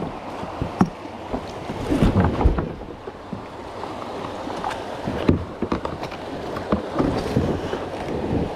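Kayak paddling: irregular splashes and knocks as a double-bladed paddle dips into the water and strikes the plastic kayak, over steady wind and water noise on the microphone.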